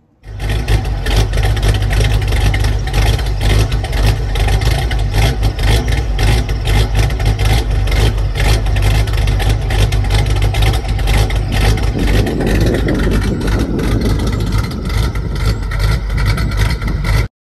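Second-generation Pontiac Trans Am V8 running through Karnage mufflers and a 2½-inch exhaust, a loud, deep, uneven lumpy beat at idle. It cuts off suddenly near the end.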